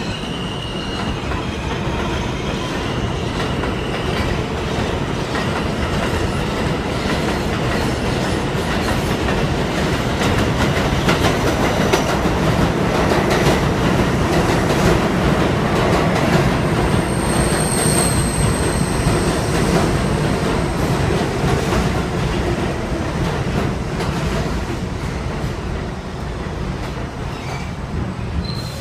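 An R42 New York City subway train running on elevated track beside the platform: a steady rumble with wheels clattering over the rail joints, loudest about halfway through, and a brief high wheel squeal a little after the middle.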